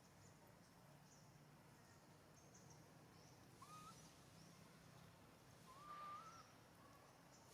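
Quiet background with two faint animal calls: a short rising whistle-like note about three and a half seconds in, and a longer wavering one around six seconds. Faint high chirps come and go throughout.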